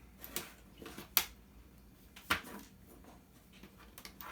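A handful of light clicks and taps of a screwdriver and small metal parts being handled while a DVD player is taken apart, the sharpest about a second in.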